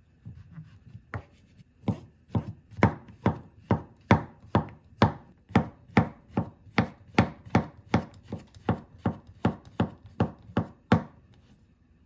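Chef's knife slicing button mushrooms on a wooden cutting board: a steady run of knocks as the blade strikes the board, about two a second, starting about a second in and stopping shortly before the end.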